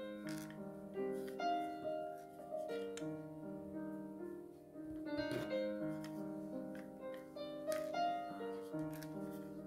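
Background piano music: a slow melody of held notes over lower chords.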